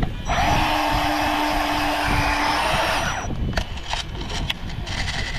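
Fishing reel running with line on it, a steady mechanical whir with a fixed tone that stops abruptly after about three seconds.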